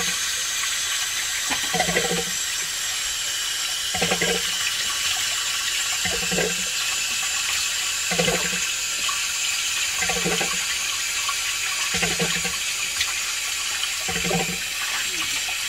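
Water running steadily from a bathroom tap into a sink while someone lathers soap and washes their face. A short low sound recurs about every two seconds.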